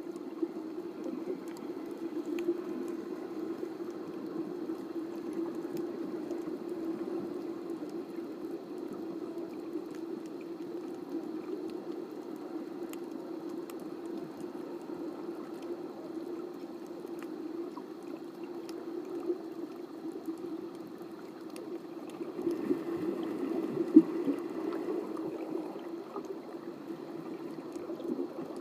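Underwater water noise while snorkelling: a steady low rush of water with faint scattered ticks, and one sharper knock late on.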